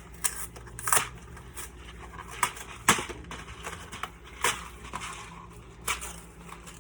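A cardboard Kraft Dinner box being handled and opened: scattered crinkles and sharp clicks of cardboard and packaging, the loudest about one and three seconds in.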